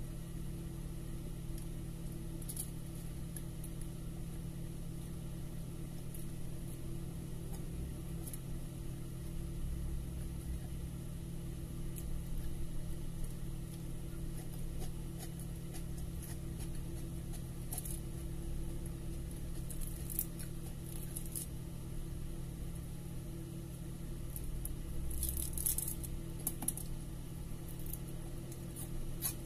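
Steady low hum with scattered faint clicks and smacks of eating with the hands: chewing and pulling apart fried milkfish. The clicks gather into small clusters twice, once around the middle and again near the end.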